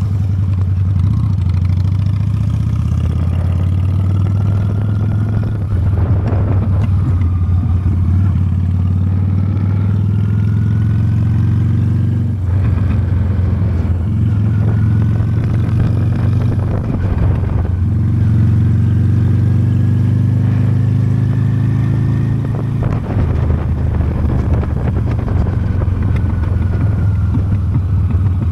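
Honda Steed's V-twin engine running steadily at road speed, with brief dips in the hum a few times.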